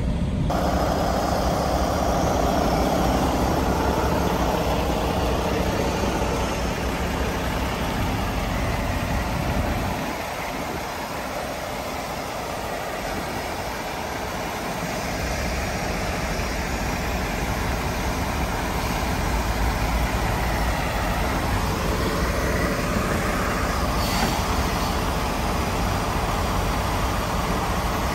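Semi truck running down the road: a steady rumble of diesel engine and tyre noise. The low part of the rumble drops away for a few seconds about ten seconds in, then comes back.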